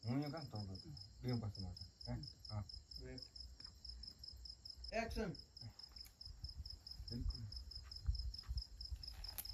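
Crickets chirping in a steady, rapid, evenly pulsed trill, with faint voices talking at times underneath.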